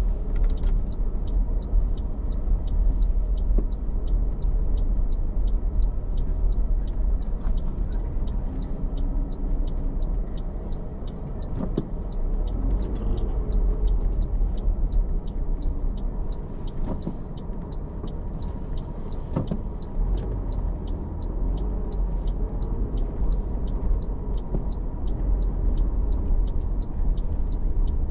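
Car driving slowly on city streets, heard from inside the cabin: a steady low engine and road rumble, with a faint regular high ticking about twice a second.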